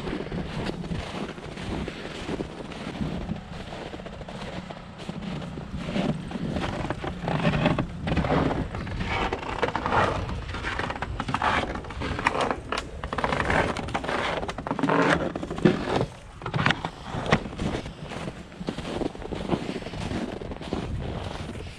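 Footsteps crunching in dry, frozen snow at a walking pace, each step a short crunch roughly once a second.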